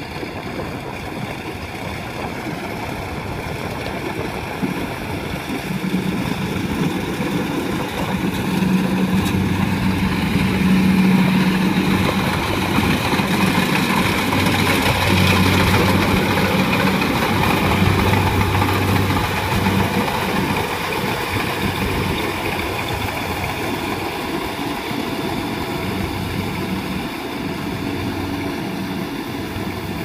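Kubota tracked rice combine harvester running as it cuts and threshes rice: a steady diesel engine drone that swells as the machine comes close in the middle and eases off as it moves away.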